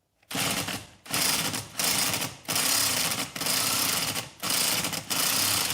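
Pneumatic impact wrench hammering in about seven bursts of under a second each, on a stuck bolt that does not come free.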